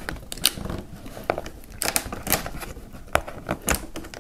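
Fingers picking and scraping at the flap closure of a cardboard box: irregular short clicks and scratches of fingernails and card.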